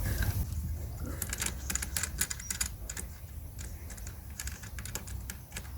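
Rapid, irregular light clicks and ticks as the screws holding the Flymo Easiglide 300 lawnmower's handle sections are wound out, thickest about a second in and thinning out towards the end.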